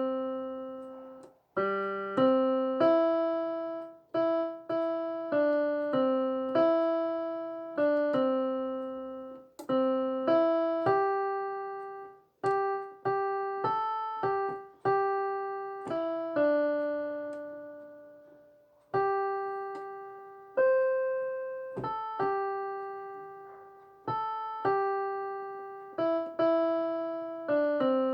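Piano-toned keyboard playing a slow melody one note at a time, each note struck and left to fade, with a few longer held notes.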